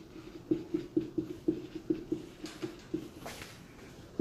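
Marker pen writing on a whiteboard: a quick run of short strokes and taps, several a second, with a couple of longer swishes in the middle.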